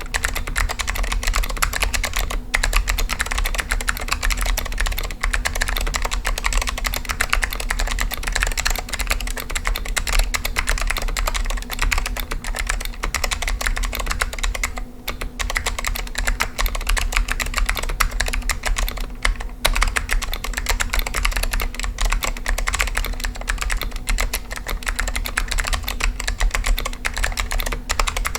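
Apple Extended Keyboard II (M3501) with stock Alps SKCM White switches being typed on quickly and continuously: a dense stream of key clicks, with two short pauses about halfway and two-thirds of the way through.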